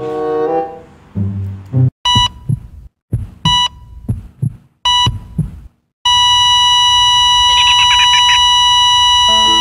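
Heart-monitor sound effect: three short beeps about a second and a half apart with heartbeat thumps between them, then one long, steady flatline tone. Music plays at the start, and violin notes come in near the end.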